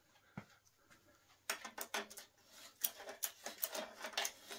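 A run of small metal clicks and scrapes begins about a second and a half in, as Robo Grip pliers are fitted onto and worked against the bicycle's headset nut.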